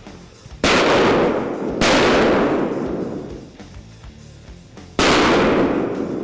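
Three shotgun shots, the first two about a second apart and the third about three seconds later, each trailing off in a long echo.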